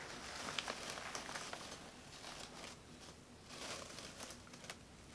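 Faint rustling and crinkling of a cloth snake bag and its newspaper packing, in several soft bursts, as hands handle it to lift a sand boa out.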